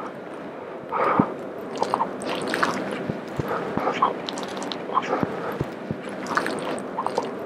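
Two people grappling on floor mats: clothing rustling and shoes and bodies scuffing and sliding on the mat, with irregular soft thumps as they roll into an armbar.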